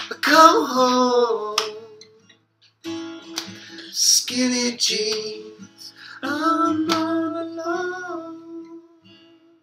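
Men singing to a strummed acoustic guitar in three phrases, the last note held and fading out near the end as the song finishes.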